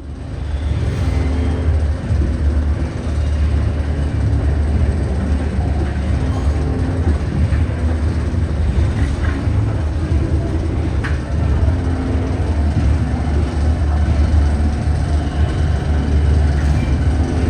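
A car driving off-road over rough ground: a steady low engine and road rumble, with a couple of sharp knocks about nine and eleven seconds in.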